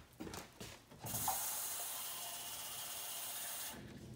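Kitchen tap running for nearly three seconds as an empty soup can is filled with water, starting and stopping abruptly, with a few light clicks before it.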